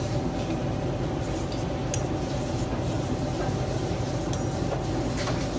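Steady low machine hum with a faint constant whine above it, and a few faint ticks.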